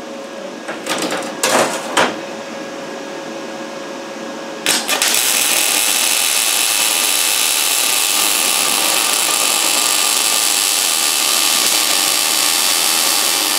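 A few knocks in the first two seconds, then from about five seconds in a MIG welder's arc runs steadily as a bead is laid along the joint of a steel door frame, a loud even crackling hiss that stops near the end.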